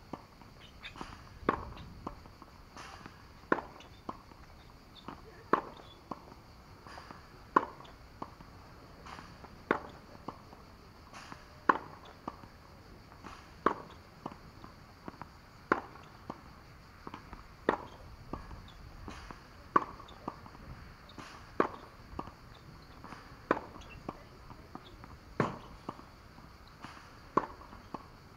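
Tennis rally on a hard court: a ball struck by rackets and bouncing, a sharp pop about every two seconds with softer ticks in between.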